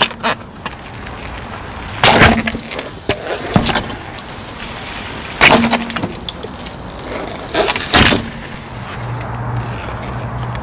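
A car tyre rolling onto a steel fire extinguisher and crushing it: loud cracking crunches, three main ones about two, five and a half and eight seconds in, with a smaller one between the first two.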